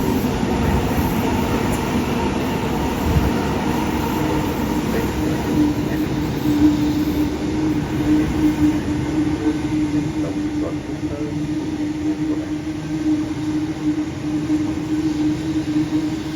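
Electric passenger train running through the station platform with a continuous rumble of wheels and motors. A steady hum sets in about four seconds in and holds.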